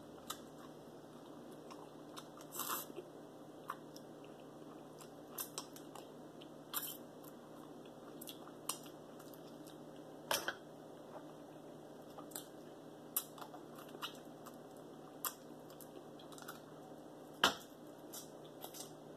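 Close-miked mouth sounds of eating mussels and shrimp: chewing and lip smacking in irregular wet smacks and clicks, the loudest about halfway through and near the end.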